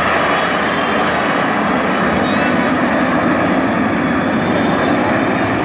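Formation of Aermacchi MB-339 jet trainers flying past in close formation: a loud, steady jet rush.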